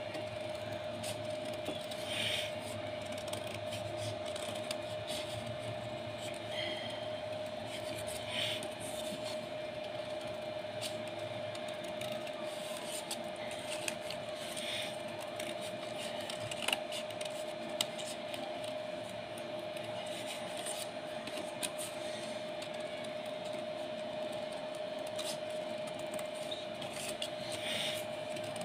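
Scissors snipping through folded paper now and then, short faint crisp cuts every few seconds, over a steady hum.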